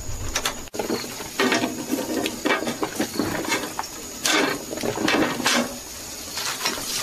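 Wire-mesh grill grate being shifted and folded by hand over a chicken on a charcoal stove, scraping and rattling against the stove's rim in a series of irregular strokes, the loudest about a second and a half in and again near four and five seconds.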